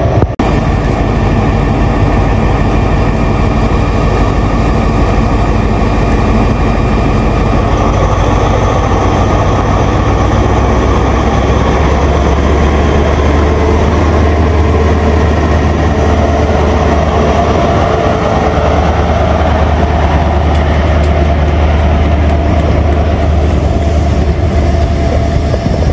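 Diesel engines of a Class 43 High Speed Train power car running under power as the train moves past the platform. A loud, steady drone that builds about ten seconds in.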